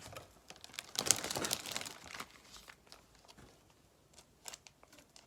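Crinkling of a foil card-pack wrapper or plastic packaging being handled, loudest for about a second, followed by a few light clicks and taps of cards being handled.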